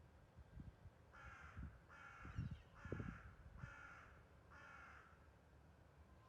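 A crow cawing five times in an even series, a little under a second apart, with a few low thumps in between.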